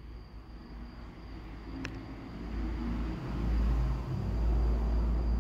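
Distant thunder: a low rumble that builds from about two and a half seconds in and rolls on, getting louder toward the end.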